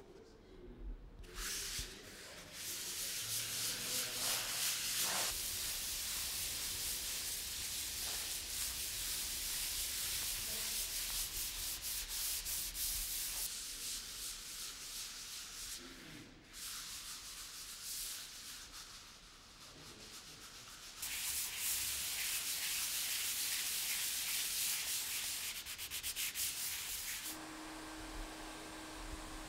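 Sandpaper rubbed by hand over the back of a large canvas painting, in long stretches of quick strokes with a quieter pause about halfway through. A steady low hum comes in near the end.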